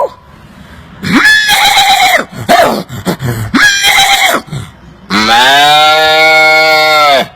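A man imitating farm animal calls with his mouth. There are three short calls, then a long, steady call from about five seconds in that sags in pitch as it ends.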